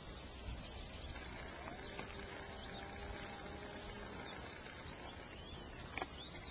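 Outdoor countryside ambience: faint bird chirps over a low rumble of wind on the microphone, with a sharp click or two near the end.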